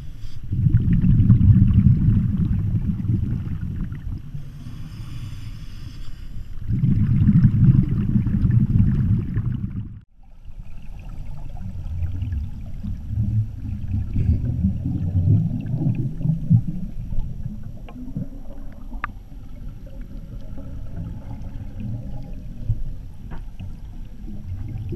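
Scuba regulator breathing heard through an underwater camera housing: two long, loud bubbling exhalations about six seconds apart with a faint hiss of inhalation between them. After a break about ten seconds in, a steadier low, muffled bubbling with a few small clicks.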